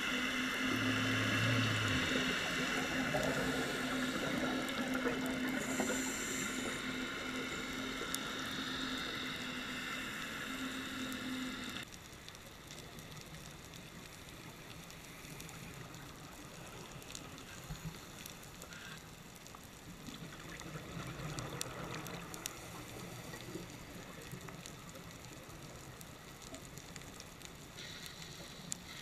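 Underwater sound picked up by a dive camera: a steady drone with several held tones, one low and others higher, cuts off abruptly about twelve seconds in. A quieter even hiss follows, with scattered faint clicks.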